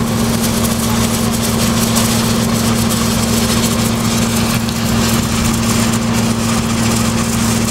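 An engine running steadily at constant speed: an even hum with a broad hiss over it.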